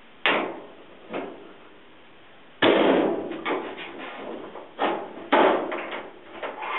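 Flat-blade screwdriver knocking and prying at a Whirlpool dryer's sheet-metal cabinet to free the top panel: a series of sharp metallic knocks and clatters, the loudest about two and a half seconds in, followed by rattling.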